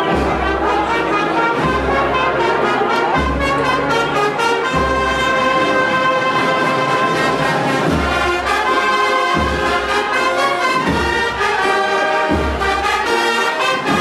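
Brass band playing a slow Holy Week processional march: trumpets and trombones carry the melody over a deep bass drum stroke about every second and a half.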